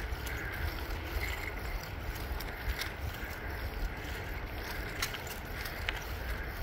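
Wind rumbling on the microphone of a camera riding a bicycle along an asphalt path, with a steady hiss of tyres and a few light clicks.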